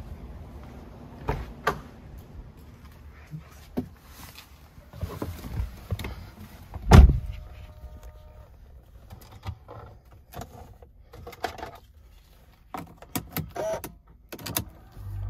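Handling knocks and clicks inside a car cabin as someone settles into the driver's seat, with a car door shutting in a single heavy thump about seven seconds in.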